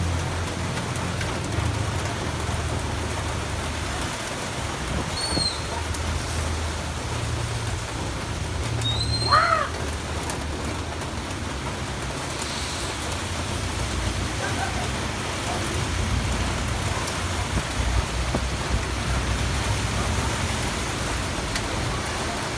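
Steady typhoon rain falling on corrugated metal roofs and a wet street, with the low rumble of vehicles passing below. A few brief high chirps cut through, the loudest about nine seconds in.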